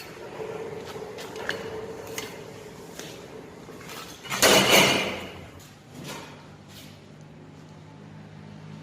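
Clinks and knocks of steel parts and tools being handled, with one louder noisy burst lasting about a second around the middle.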